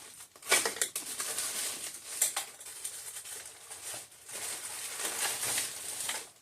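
Rummaging through small parts by hand: irregular clicks, clatters and rustling, loudest about half a second in.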